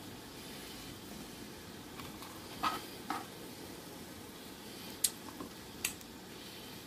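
A spoon clinking and tapping against dishware a few times as cooked steak and onion filling is spooned onto a tortilla on a plate, over a faint steady hiss.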